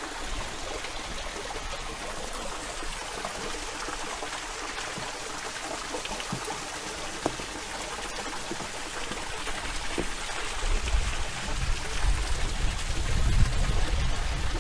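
Steady outdoor background hiss with no voices. A low rumble swells in from about ten seconds in.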